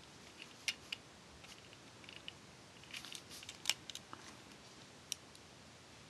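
Small, sharp clicks of a Transformers Generations Voyager Class Springer figure's plastic parts being handled and moved in helicopter mode. The clicks come scattered, with a cluster about three to four seconds in.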